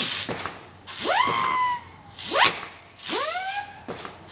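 Whistling fireworks going off in quick succession: about three shrill whistles, each rising sharply in pitch and then levelling off, mixed with bursts of hissing.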